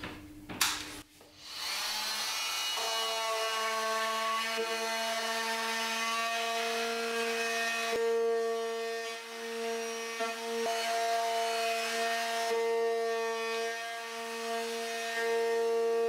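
Fein MultiMaster oscillating multi-tool, set to its low speed 2, running with a triangular Delta sanding pad against bare wood in a corner: a steady motor hum with the rasp of abrasive on wood. It starts after a couple of clicks about a second and a half in, dipping briefly twice as the pad is worked.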